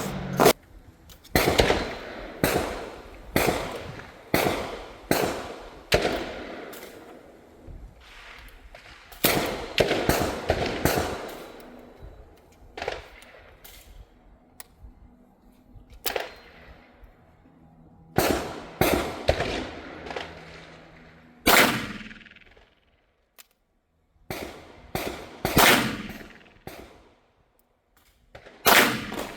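Repeated gunshots from a .410 revolver shotgun firing Winchester Super X shotshells, each with a short echoing tail. The first six seconds hold a quick string of shots about a second apart, and more shots follow at uneven gaps.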